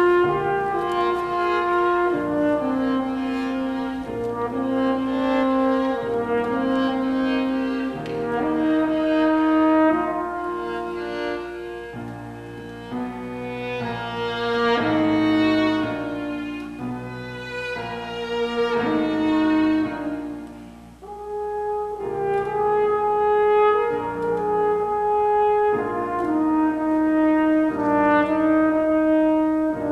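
French horn, violin and grand piano playing a classical piece together, the horn's held notes standing out most, with a brief lull about two-thirds of the way through.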